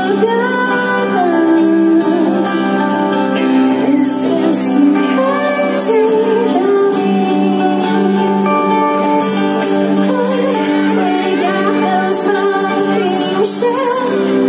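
Live band music through the PA, with acoustic and electric guitars, held low notes and a bending melody line above them.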